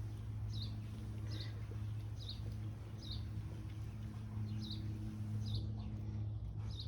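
A small bird chirping over and over, one short high chirp about every second, over a steady low hum.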